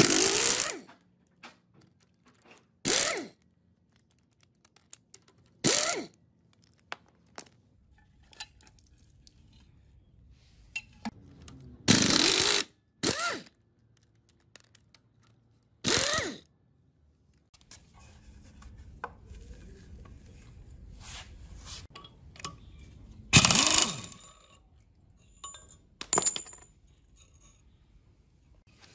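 Pneumatic impact wrench in short bursts, about eight of them, loosening rusted bolts on an old Yanmar S13 CE single-cylinder diesel engine, some bursts winding down in pitch as they stop. Between them come small metallic clinks of tools, sockets and bolts.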